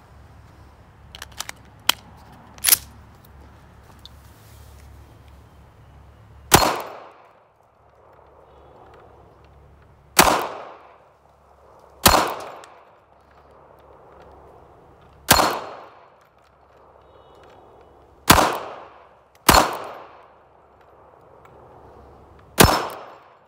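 Ruger LCP .380 pocket pistol firing seven shots at uneven intervals of one to three seconds, each a sharp crack that dies away within about half a second. A few short, sharp clicks come in the first three seconds before the shooting starts.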